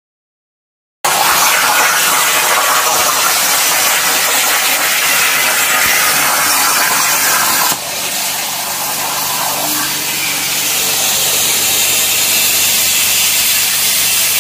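CNC plasma torch cutting 4 mm steel sheet: a loud, steady hiss of the arc and its air jet that starts suddenly about a second in, with a short dip in level about halfway through.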